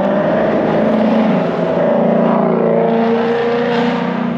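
Motorcycle engine running, its pitch rising and falling as it revs.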